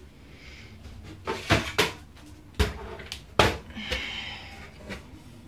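Handling noise: about five sharp knocks and bumps over two seconds, followed by rustling, as a handheld phone camera is moved and an analog bathroom scale is reached for.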